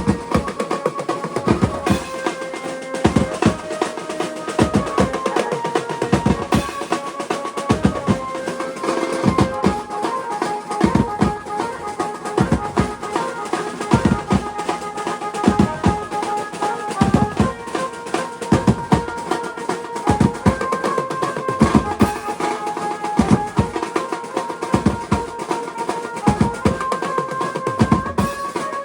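Garba music: a steady, driving drum beat under a melody that moves in steps.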